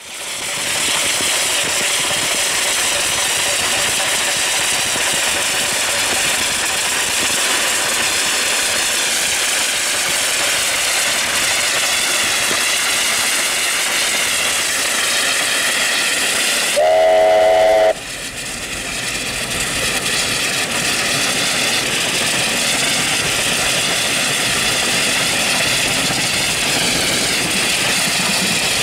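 NSW 36 class 4-6-0 steam locomotive 3642 running at speed, its exhaust and running gear blended with steady wind and road noise as heard while pacing it from a moving vehicle. About 17 s in, the locomotive's whistle gives one short blast of several tones together, lasting about a second.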